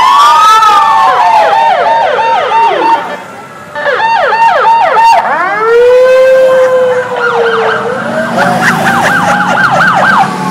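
Several vehicle sirens sounding at once in the passing parade, overlapping fast yelping sweeps with slower rising and falling wails. They drop back briefly about three seconds in, then sound loudly again.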